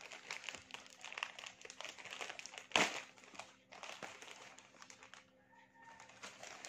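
Plastic courier mailer bag crinkling and rustling as it is pulled and torn open by hand, with one sharp, louder crackle about three seconds in.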